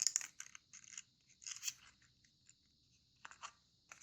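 Sheet of origami paper being folded and creased by hand: faint, short crackles and rustles in a few separate bursts, with quiet gaps between.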